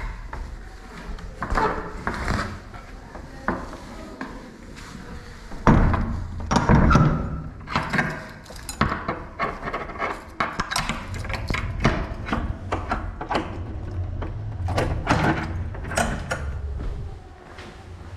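Irregular knocks, clicks and rustling of someone moving about and handling things close to a body-worn camera, with footsteps on a hard floor near the end.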